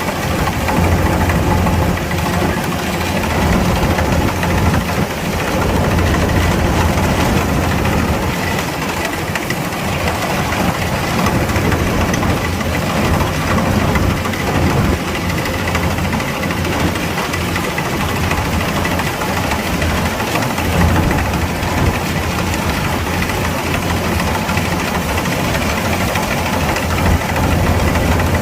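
Kubota DC-105X combine harvester's diesel engine running steadily, with a strong low hum.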